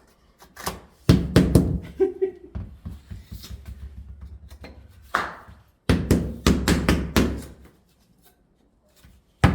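Quick clusters of knocks and thuds from wooden floor boards being worked and fitted into place, sped up about threefold. A nearly quiet pause falls about a second before the end.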